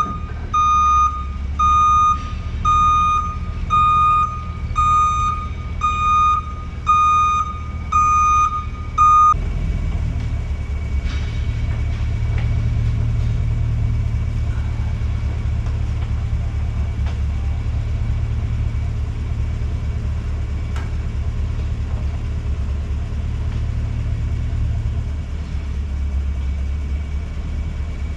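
A vehicle's reversing alarm beeps evenly, a little over once a second, over a low running engine. The beeping stops about nine seconds in, and the engine keeps running.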